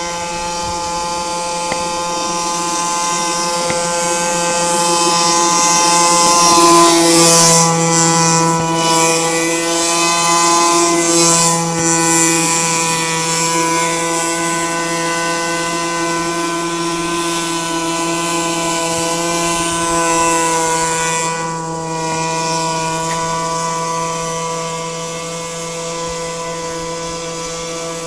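Radio-controlled model airboat's small engine and air propeller running at a steady high speed, a continuous buzzing drone. It grows louder as the boat passes close by, between about a quarter and halfway in, then eases off as the boat runs away again.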